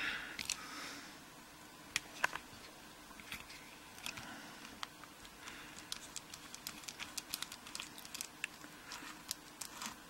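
Faint, scattered metallic clicks and scrapes of an Allen-key driver working the screw in the top of an American 748 padlock's body. The clicks come closer together in the second half.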